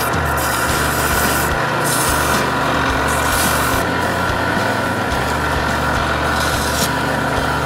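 Wood lathe running while sandpaper is held against a spinning acrylic duck call insert: a steady rubbing hiss over the motor's constant whine.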